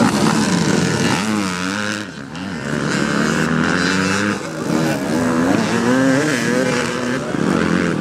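Dirt-bike engines revving up and down, the throttle blipped on and off again and again as riders pick their way through a rough obstacle section.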